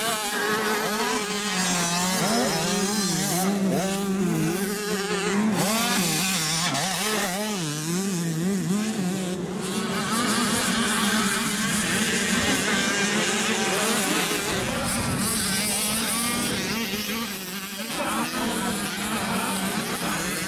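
Small 65cc two-stroke motocross bike engines revving up and down in quick waves as the throttle is worked over the track, the pitch rising and falling about every half second.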